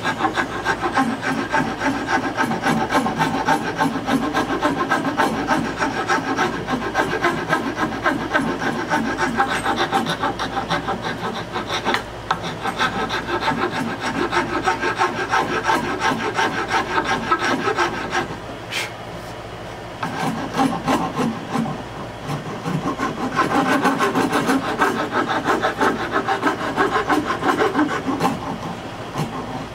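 Hand rasp filing the handle of an oak paddle in rapid back-and-forth scraping strokes, smoothing the wood, with a brief pause about two-thirds of the way through.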